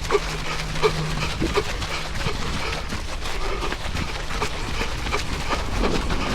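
A runner's heavy, wheezing breathing close to the microphone, in a steady rhythm of about one and a half breaths a second, over wind rumble.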